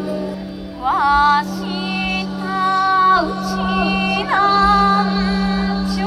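A woman's solo singing voice into a microphone: long held notes, each scooping up into pitch, about a second in and again past the middle. A steady low drone runs beneath.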